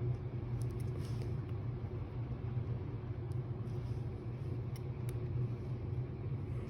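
Steady low hum of background machinery, with a few faint small clicks as the phone's flex-cable connectors are pressed onto the logic board.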